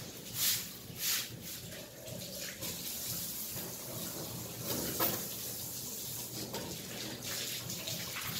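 Water running from a garden hose onto a wet concrete floor: a steady splashing hiss. Two short, sharp rushes of noise stand out in the first second or so.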